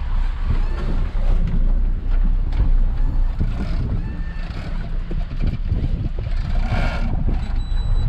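Boat engine running as a steady low rumble, with wind buffeting the microphone and occasional knocks; a brief higher-pitched sound comes about seven seconds in.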